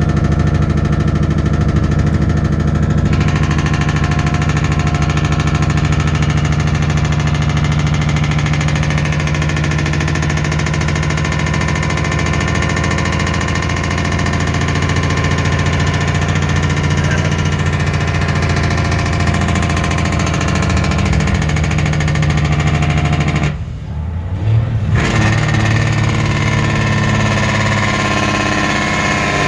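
Cummins N14 diesel with its Jacobs engine brake on, a loud, steady braaap from the exhaust as the truck slows on a downhill. It briefly cuts out about 24 seconds in, then comes back at a slightly different pitch.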